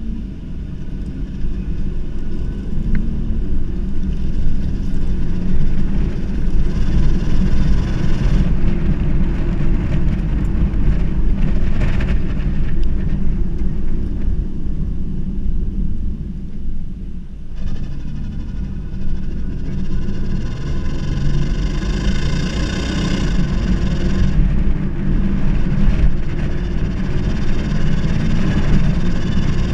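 Holden VR's engine and exhaust running with a steady low drone, and a higher hiss that fades for a few seconds around the middle and then returns stronger. The owner presents this as an exhaust sound problem under acceleration.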